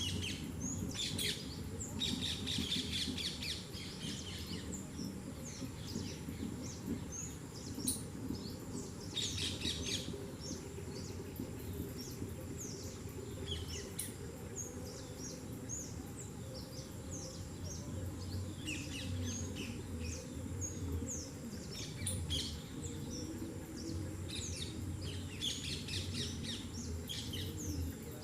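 Birds chirping in many short tweets, busiest in spells about 1–4 s, 9–10 s, 18–21 s and 25–27 s in, over a steady low rumble.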